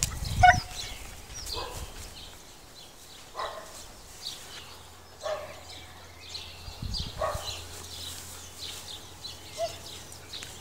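A dog giving short single barks, about six of them spaced a second and a half to two seconds apart, with low rumbling bumps near the start and about seven seconds in.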